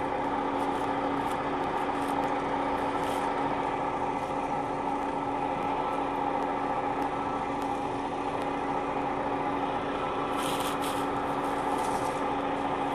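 Combine harvester running steadily: an even machine hum with a few held tones. A brief hiss about ten seconds in.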